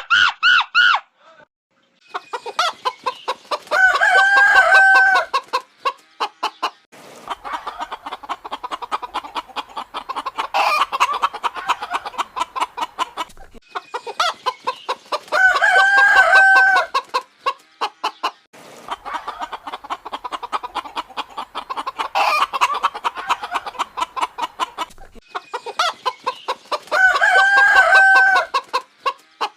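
Chickens clucking rapidly and continuously, with a rooster crowing several times, the crows coming roughly every six seconds in a repeating pattern.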